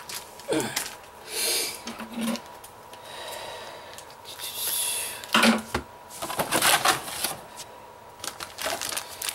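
Plastic toy packaging and trading cards being handled: scattered clicks, clacks and rustling, with a few louder bursts of crinkling.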